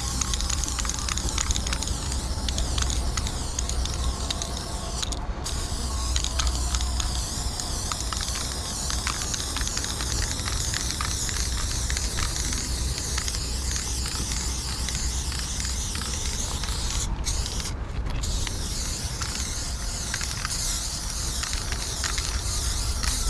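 Aerosol spray-paint can hissing steadily as a large area of a graffiti piece is filled in on a concrete wall, over a low rumble. The spray breaks off briefly about five seconds in and twice in quick succession about three-quarters of the way through.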